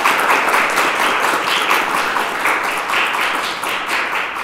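Audience applauding, many hands clapping densely, slowly dying down toward the end.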